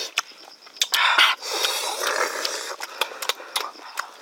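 A person eating noisily, chewing and lip-smacking with many sharp wet clicks and two short stretches of louder mushy chewing in the first half.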